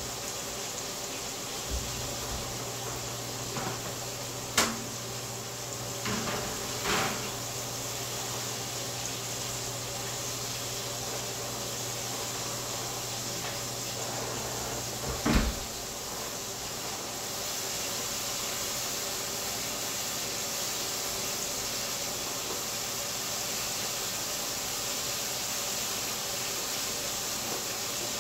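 Handling of a wall oven's door and racks: a few sharp metal knocks and clatters, the loudest about four and a half seconds in and again near the middle, over a steady hiss.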